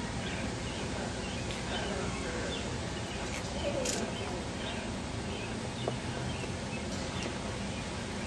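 Outdoor garden ambience: small birds chirping over a steady background hiss, with faint distant voices and a single sharp click about four seconds in.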